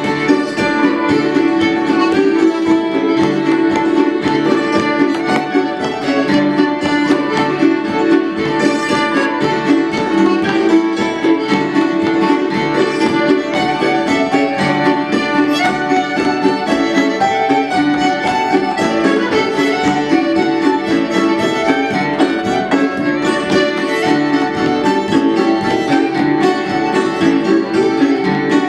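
Live acoustic folk band playing an instrumental tune, with fiddle over mandolin, hammered dulcimer, accordion and acoustic guitar.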